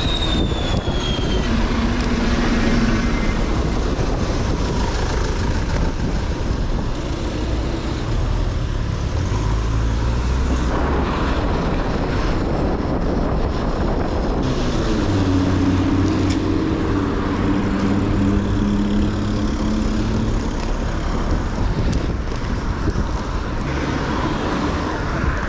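Road traffic of cars and trucks heard from a moving bicycle, with wind rushing over the action camera's microphones, louder than it should be because the furniture-pad windscreens are badly stuck on. A vehicle's engine hum stands out about two thirds of the way in.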